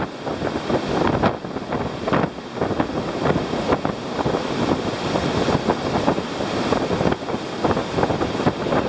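Wind buffeting the microphone: a continuous rushing noise with frequent irregular gusts and thumps.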